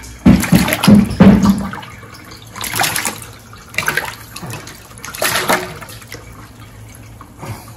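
Live opaleye flapping in a stainless steel sink of shallow water, splashing. A loud run of splashes comes in the first second and a half, then three shorter splashes over the next few seconds.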